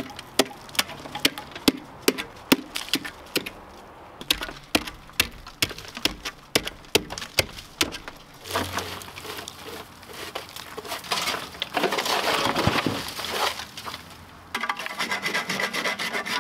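Long-handled tool chipping ice off wooden porch steps: a run of sharp knocks, about two to three a second, then several seconds of rough scraping, and quicker knocks again near the end.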